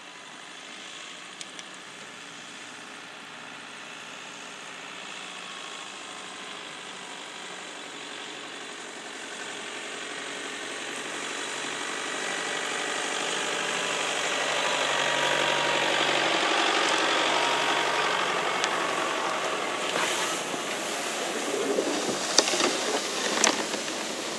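Toyota pickup's engine running as the truck drives slowly through grass toward and past, growing louder to a peak about two-thirds of the way through and easing off a little. A few sharp clicks and knocks near the end.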